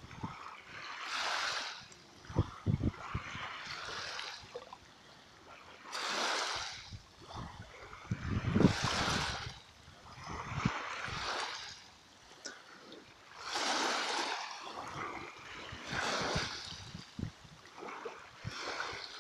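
Small sea waves lapping and splashing, a wash of water about every two to three seconds, with short low thumps in between.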